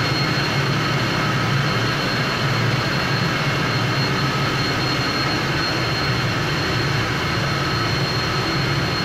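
Ship's engine-room machinery running steadily and loudly: a constant deep drone with a thin, steady high whine over it.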